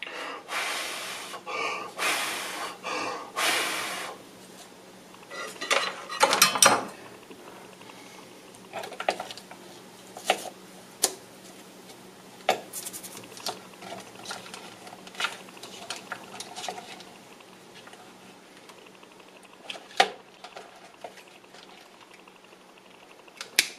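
Small parts and wires being handled on a plastic instrument cluster housing on a workbench. A few seconds of rustling and scraping come first, then a few louder knocks, then scattered light clicks and taps.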